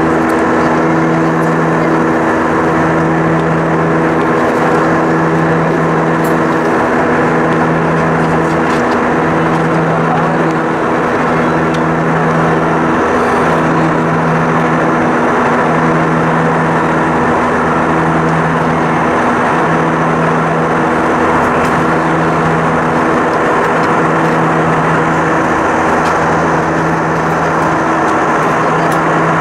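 IAE V2500 turbofan engines of an Airbus A320 at climb thrust, heard inside the cabin: a steady rush of engine noise with several held tones, and one low hum that pulses slowly, about every two seconds.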